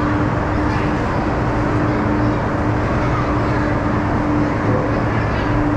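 Ice resurfacer running as it drives slowly across the rink: a steady engine drone with a low hum.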